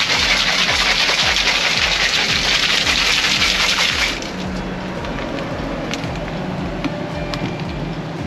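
Ice rattling hard in a plastic cocktail shaker as it is shaken, stopping abruptly about four seconds in. After that comes the steady low hum of the camper's air conditioner, with a few small clicks.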